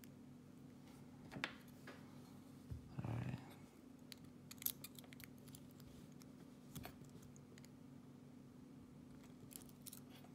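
Faint, scattered metallic clicks and small scrapes of a steel lock pick and a bent-wire tool working in the cylinder of a Trioving 5652 padlock, the sharpest click a little under five seconds in, over a low steady hum. A short muffled sound comes about three seconds in.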